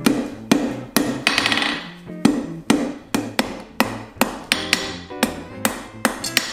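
Hand hammer striking a red-hot steel bar on a steel anvil in a steady rhythm, about two to three blows a second. A few blows leave a short metallic ring.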